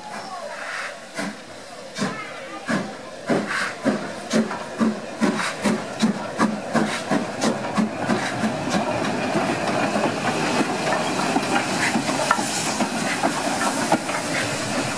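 BR Standard Class 9F 2-10-0 steam locomotive No. 92214 pulling away. Its exhaust beats begin about two seconds in, slow and spaced out, and quicken steadily as it gathers speed. In the second half they run together into a steady rush of steam.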